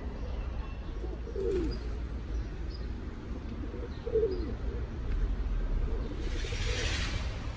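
A bird cooing twice, each call low and falling in pitch, over a steady low rumble; a brief hiss near the end.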